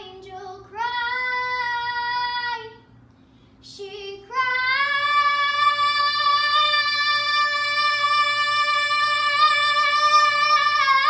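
A young girl singing on her own, with no accompaniment: a short held note, then a higher note held steadily for about eight seconds.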